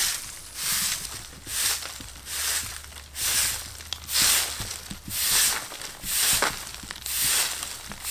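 A soft-bristled broom sweeping over dry dirt ground and scattered dry leaves, in steady rhythmic swishes a little more than one a second.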